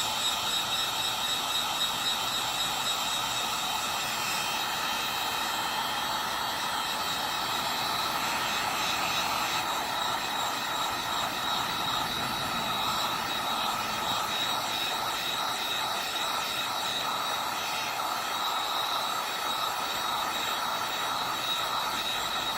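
Heat gun blowing steadily, a rush of hot air with its fan whining on top, heating the phone's plastic top bracket to loosen it.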